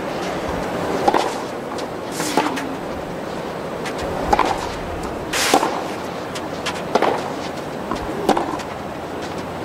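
Tennis rally: a ball struck back and forth with racquets, giving about six sharp pops roughly every second or so.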